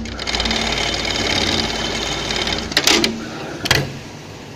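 Automatic pattern sewing machine stitching velcro at high speed for nearly three seconds, then stopping with a few sharp mechanical clicks, leaving a lower steady hum.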